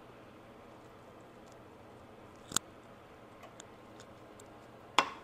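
Two sharp clicks of kitchenware being handled, about two and a half seconds apart, the second louder, over faint room tone.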